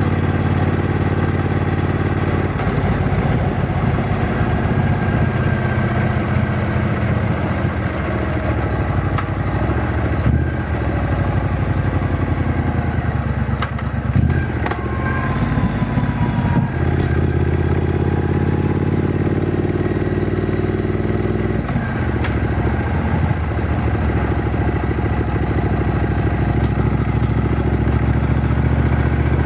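Triumph Bonneville T120's 1200 cc parallel-twin engine running under a rider on the road. Its note holds steady, then shifts and wavers through a long middle stretch, and settles again from just past the middle, changing once more around two-thirds of the way in as the throttle and gears change.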